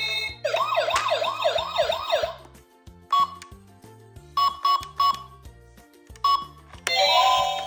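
Electronic toy emergency-vehicle siren giving about six quick rising yelps, then several short beeps and a chiming tone near the end, over background music.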